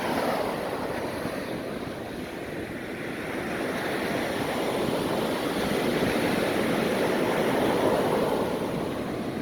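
Ocean surf washing up the beach: a steady rushing of breaking waves that dips, then swells to its loudest near the end as a wave runs in, and eases off.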